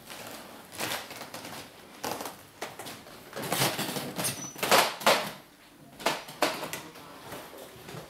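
Irregular footsteps and knocks on a wooden floor, a handful of separate steps, loudest a little past halfway.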